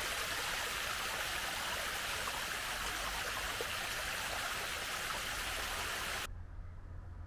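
Steady rushing of running water, like a small stream flowing over rock. It cuts off suddenly about six seconds in, leaving only a faint low hum.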